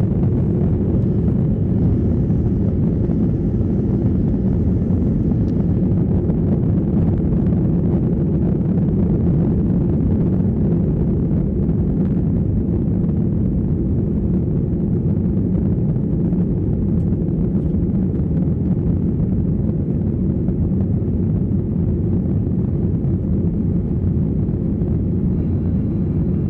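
Cabin noise of an Airbus A321-212 airborne or at full power: the CFM56 jet engines and airflow make a steady, even low rumble, heard from inside the cabin.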